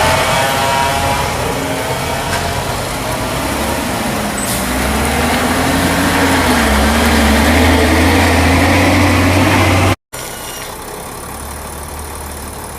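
Heavy diesel logging truck engine running under load, its pitch wavering up and down. About ten seconds in the sound cuts off abruptly and switches to a quieter, steadier engine.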